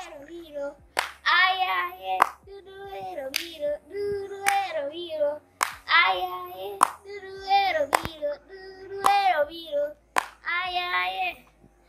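A child singing a traditional Luo song, sung after harvest, in short phrases and clapping along about once a second.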